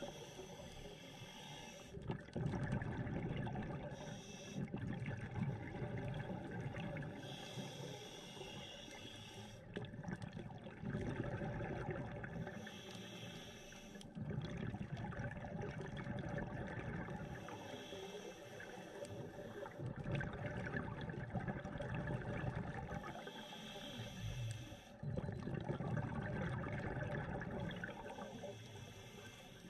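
Underwater, a scuba diver breathing through a regulator: a short hissing inhale, then a longer, louder rush of exhaled bubbles, repeating about every five seconds.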